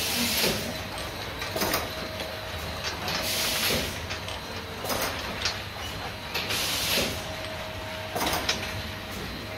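Bottle-filling machinery on a cosmetics production line running in cycles: a short hiss about every one and a half seconds, over a faint steady tone.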